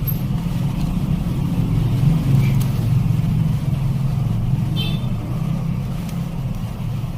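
Steady low rumble, swelling slightly a couple of seconds in, with two or three faint clicks.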